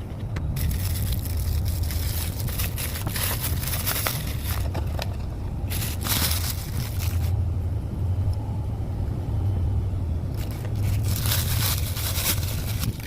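Plastic toy wrapping crinkling and rustling in three long spells as a Happy Meal toy is unwrapped, over a steady low hum.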